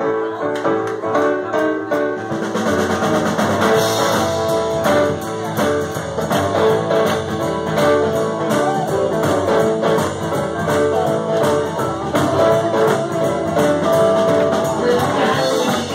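Live blues-rock band playing with electric guitars, keyboard and drum kit. Deep bass comes in about two and a half seconds in and fills out the full band sound.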